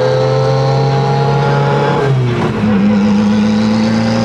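Built, turbocharged 4G63 four-cylinder of a Mitsubishi Evo 8 drag car, heard from inside the cabin as it drives. The engine note climbs slowly, dips about two seconds in as at an upshift, then holds and starts to climb again.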